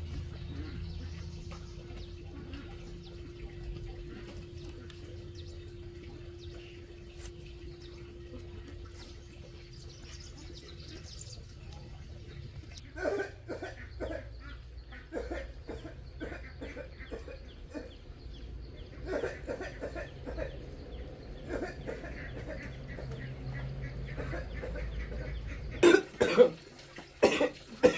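Chickens clucking on and off from about halfway through, over a low steady hum. Near the end a man coughs hard several times.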